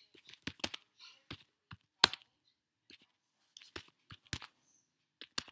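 Typing on a computer keyboard: irregular key clicks at an uneven pace, with one louder clack about two seconds in.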